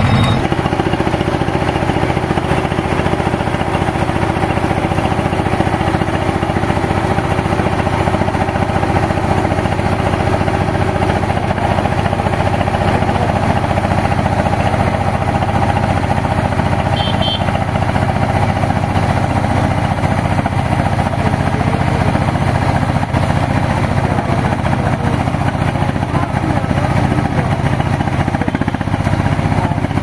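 Tracked mini combine harvester running steadily under load as it cuts and threshes standing rice, its engine and working mechanism making an even, continuous drone.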